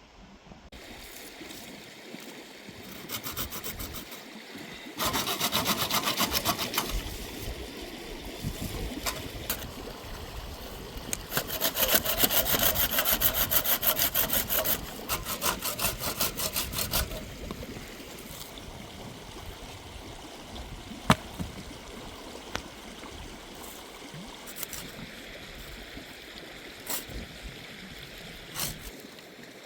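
Hand saw cutting wood in bouts of quick, even back-and-forth strokes, with pauses between bouts. A single sharp click a little after two-thirds of the way through.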